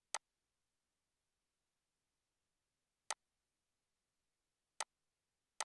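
Four sharp computer mouse clicks, the first right at the start and the others about three, nearly five and five and a half seconds in, with near silence between.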